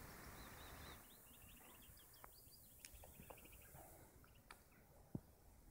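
Faint birdsong: a continuous run of rapid, high chirping notes, with a soft hiss in the first second and a few small clicks, the sharpest a tap about five seconds in.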